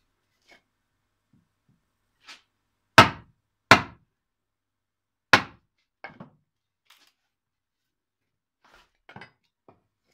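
An axe splitting a wooden block into rough shingle blanks: three sharp knocks of steel on wood, two close together about three seconds in and a third a little past the middle, followed by a few lighter knocks.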